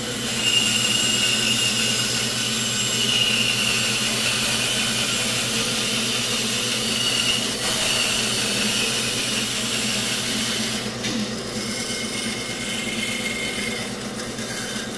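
Bandsaw cutting into a block of 4x4 softwood post: a steady hiss of the blade through the wood with a high whine over the hum of the running motor. The cutting noise eases about eleven seconds in while the motor keeps running.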